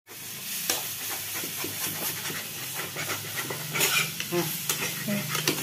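Metal spatula scraping and clinking against an iron kadhai as cooked food is stirred and scooped, as scattered sharp clicks over a steady low hum.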